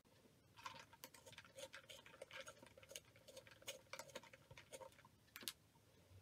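A pencil being turned in a small plastic bullet-train-shaped manual pencil sharpener, the blade shaving the wood with faint, irregular scratchy clicks that stop about five and a half seconds in.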